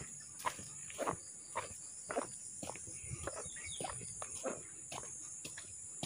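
Footsteps on a wet dirt track through grass, about two steps a second, over a steady high-pitched drone of insects.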